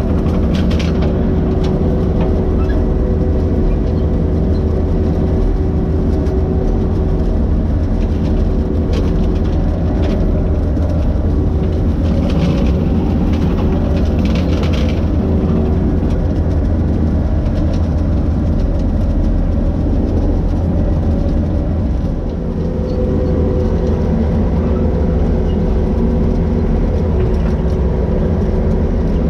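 Skid steer running steadily with a bush hog rotary cutter, a loud constant engine hum with a brief dip about two-thirds of the way through.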